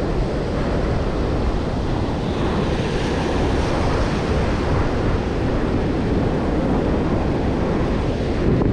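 Ocean surf breaking and washing up a sandy beach as a steady rushing noise, with wind buffeting the microphone.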